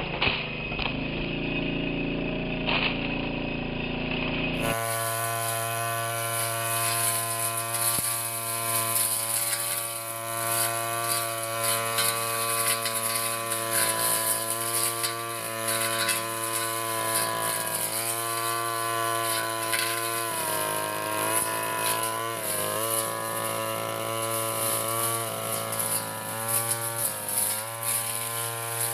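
Backpack brush cutter's small petrol engine running at high speed as it cuts grass and weeds, a steady buzzing engine note. It sounds duller for the first few seconds, and the note sags briefly a few times in the second half.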